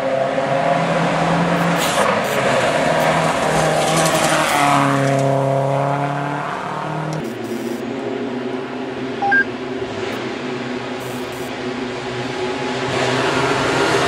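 Rally car engines on a gravel stage heard at a distance through forest, revving with the pitch rising and falling, held high for a couple of seconds around the middle before dropping away. Near the end an approaching car grows louder.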